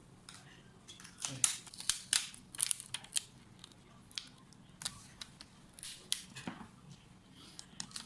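Sharp clicks and clatter from small hard plastic and metal laptop parts being handled during an M.2 SSD upgrade on an Asus FX707. The clicks come thick and fast about one to three seconds in, then space out into occasional single clicks.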